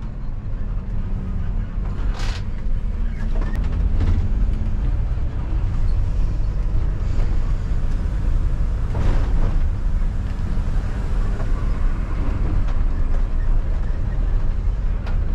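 Refuse truck's diesel engine running steadily as it drives, heard from inside the cab with road noise. A few brief rattles and a short swell of noise about nine seconds in.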